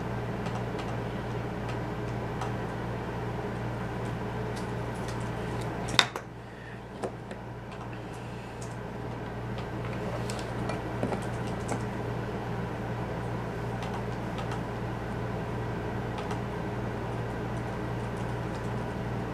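Steady low hum and room noise at a workbench while a connector is soldered, with one sharp click about six seconds in and a few faint ticks later from tools being handled.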